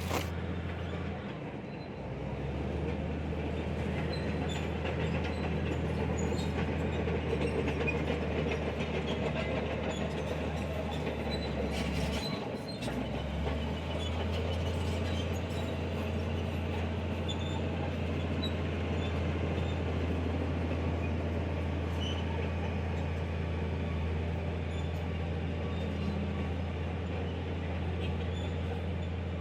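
Heavy diesel earthmoving machinery running steadily, a deep drone with metallic clatter and squeal over it, dipping briefly twice, near the start and about halfway through.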